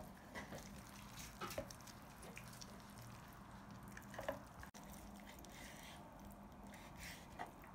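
Faint handling sounds: a few soft, wet clicks as boiled meat is pulled apart and off the bone on a wooden cutting board, over a low steady hum.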